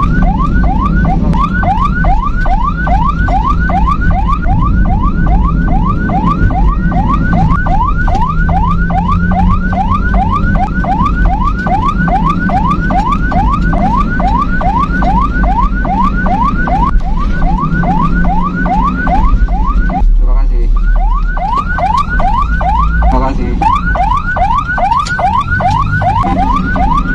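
Ambulance siren on a fast yelp setting, about four rising sweeps a second, over engine and road rumble. It breaks off briefly about 20 seconds in, then resumes, turning to a quicker warble a few seconds later.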